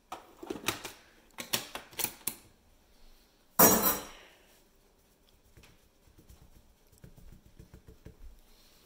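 A spoon clicks and knocks against a flour canister several times while flour is scooped out, then a single loud clatter comes about three and a half seconds in. After it, hands pat and sweep the flour across the countertop with light tapping and scratching.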